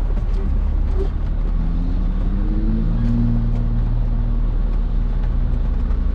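Motor vehicle engine running with a steady low rumble; about a second and a half in, its tone rises for a second or so and then holds steady.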